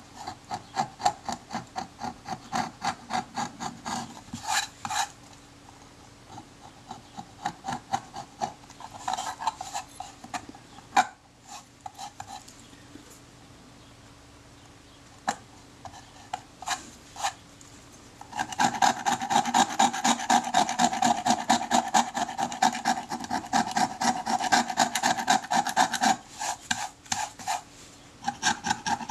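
Scalpel blade scraping firmly stuck leather remnants and glue off the aluminium back of a Kodak Retina IIa camera in quick, repeated strokes. It goes in short spells at first, with a few isolated clicks, then settles into a long, steady run of scraping about two-thirds of the way in.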